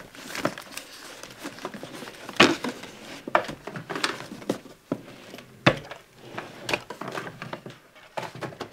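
Papers, cards and photos being rummaged through in a wooden bedside-table drawer: irregular rustling and crinkling of paper with light knocks against the wood, the sharpest about two and a half and five and a half seconds in.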